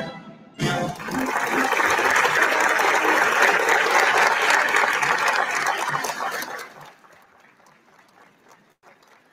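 Crowd applause from a documentary film's soundtrack, swelling about a second in and fading away after about six seconds to a faint background.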